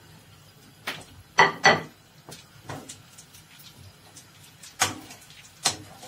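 Kitchen utensils and pans being handled: about six separate sharp knocks and clinks, the loudest two close together about a second and a half in.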